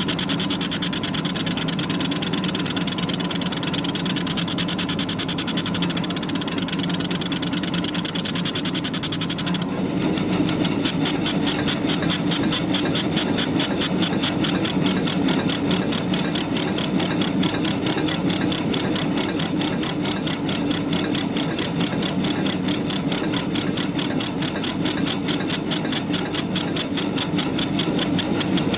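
Laser cutter running a cutting job: a steady machine hum with a fast, even pulsing from the moving head that shifts in character about ten seconds in.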